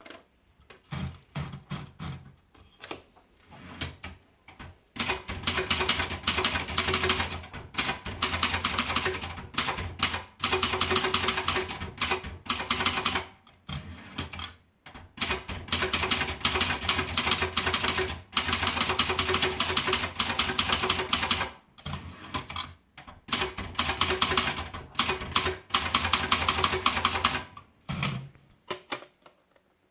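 Sperry Remington typewriter being typed on: a few scattered key strikes at first, then long fast runs of key strikes broken by short pauses, thinning out to a few strikes near the end.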